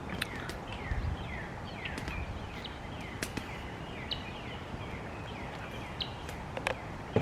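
A flock of birds calling over one another: many short chirps that slide down in pitch, with scattered sharp clicks among them.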